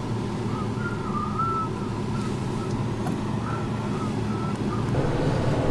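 Car engine and road noise heard from inside the cabin while driving, a steady low rumble that grows a little louder near the end. Faint short warbling high notes come and go over it for the first few seconds.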